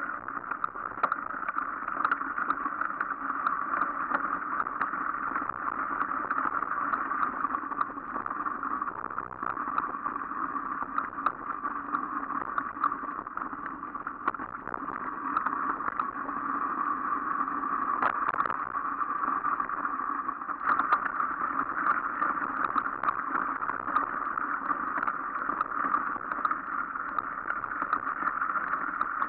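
Mountain bike riding along a snowy, leaf-strewn dirt trail: continuous rolling and riding noise with many small knocks and rattles from bumps in the track.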